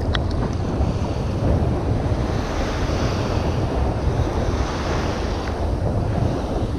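Wind buffeting the microphone in a steady low rush, over the wash of saltwater surf.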